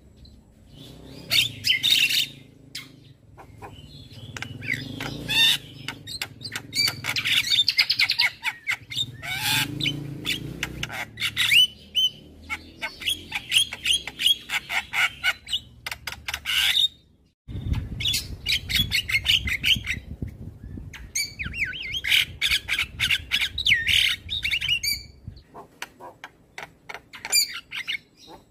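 Javan myna (jalak kebo) singing and chattering: long runs of rapid, scratchy notes mixed with squawks. There is a brief break about two-thirds of the way through.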